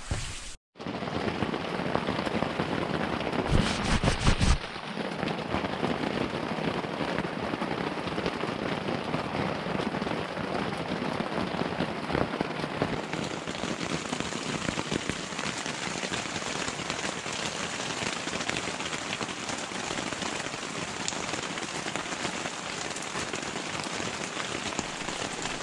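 Steady heavy rain falling on the tent fabric and the wet wooden deck, heard from inside the tent. It is briefly louder, with a few knocks, about four seconds in.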